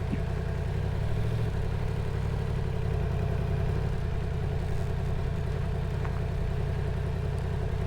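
Yamaha MT-10's crossplane inline-four engine running steadily at low revs, an even low sound with no revving.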